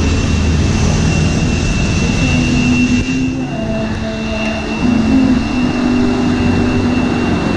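Electric blender motor running steadily, its pitch shifting a little as it works, heard after about three seconds of loud, steady street noise.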